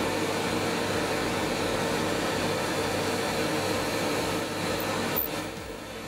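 Drill press motor and a dust-extraction vacuum running together as a steady, loud whooshing hum, while the bit drills the pin hole through the knuckles of a wooden hinge. It eases slightly near the end.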